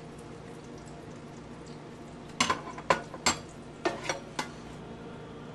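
Dishes and glassware clinking in a kitchen sink while being washed by hand: a quick run of six or so sharp clinks about halfway through, over a steady low hum.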